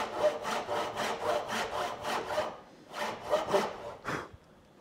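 Dovetail saw cutting the pins of a half-blind dovetail by hand, taking light back-and-forth strokes, about four a second, along a knife line. The strokes pause briefly a little past halfway, resume, and stop near the end.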